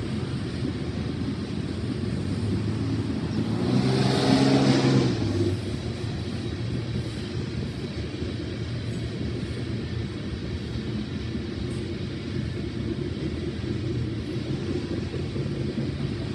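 Steady low rumble of a BNSF freight train's cars rolling past. About four seconds in, something louder swells up and then drops away within a second and a half.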